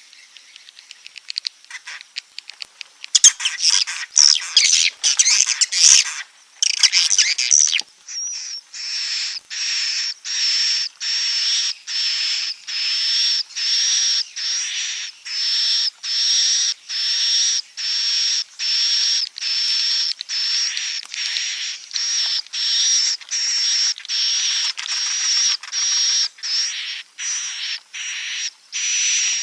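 Swiftlet calls of the 'inap' (roosting) type used to lure swiftlets to stay in a swiftlet house. A few faint ticks, then a burst of dense, loud twittering from about three seconds in. From about eight seconds on comes a steady, regular string of high buzzy chirps, about three every two seconds.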